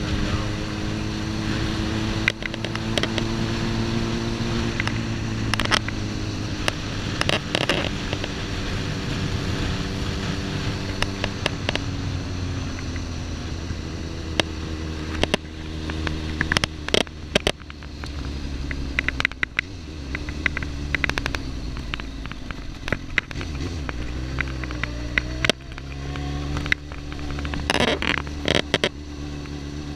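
Suzuki GSX-R1000 inline-four engine running as the motorcycle rides along, its note slowly falling, then dipping and rising again near the end. Frequent sharp clicks and crackles break through it, a fault in the recorded audio.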